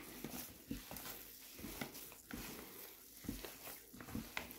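Hand squeezing and mashing a soft potato-and-chicken mixture in a plastic bowl: faint, irregular squelches and soft pats.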